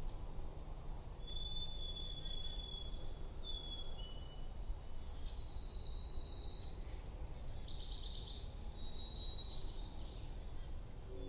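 Several songbirds singing over a steady low background rumble: thin, clear whistled notes in the first few seconds and again near the end, a fast buzzy trill (the loudest sound) about four seconds in, and a quick run of down-slurred notes about seven seconds in.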